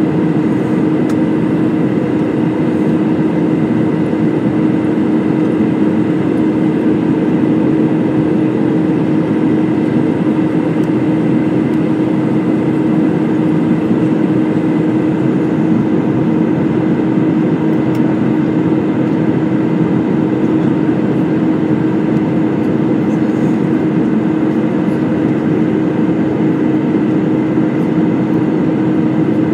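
Cabin noise of an Airbus A320 airliner in flight: a constant jet engine drone and airflow rush, with a steady low hum running through it.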